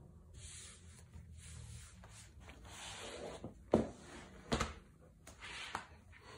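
A hand rubbing and sliding square carpet tiles across a floor while they are being fitted together, giving a scratchy, rasping friction noise. Two louder thumps come a little under a second apart near the middle.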